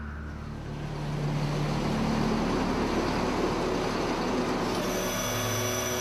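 Combine harvester's belt-and-pulley drives running during a factory function test, the machinery noise swelling about a second in and holding steady, with several steady whining tones joining near the end.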